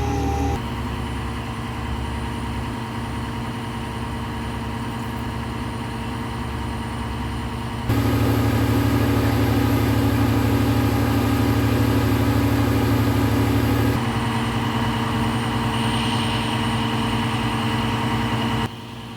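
Concrete truck's diesel engine running steadily, heard in a few joined shots: the level and tone change suddenly three times, and it is loudest in the middle stretch.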